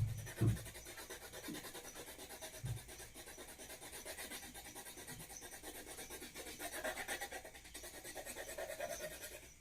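Pencil shading on paper: faint, rapid back-and-forth strokes of the lead scratching across the sheet, with a few soft low bumps in the first three seconds.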